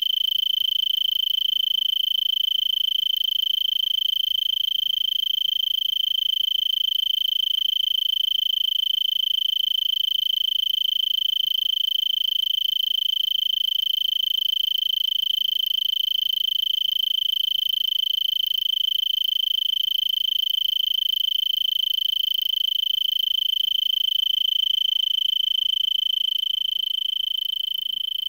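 Tree cricket stridulating: a continuous high trill on one steady pitch, unbroken throughout, a little quieter near the end.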